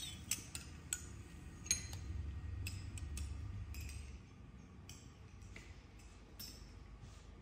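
Metal teaspoons clinking against glass as tea is stirred in small glass tea glasses: a string of short, ringing clinks at irregular spacing. A low rumble sits underneath from about two to four seconds in.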